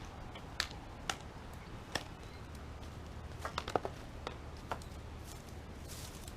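A scattering of short, sharp snaps and taps over a low steady hum, bunched into a quick flurry a little past the middle.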